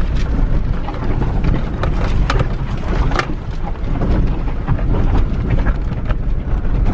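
Car's tyres rolling slowly over a rough, rocky dirt road, heard from inside the cabin: a steady low rumble with frequent small clicks and knocks from stones and rattling.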